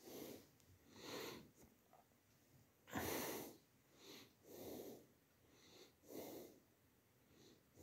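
A person breathing audibly close to the microphone: faint, short puffs of breath about every second and a half, the loudest about three seconds in.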